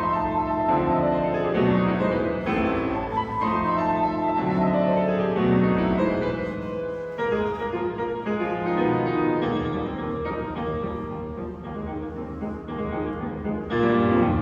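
Piano trio playing classical-style music: piano with violin and cello, with a louder chord struck near the end.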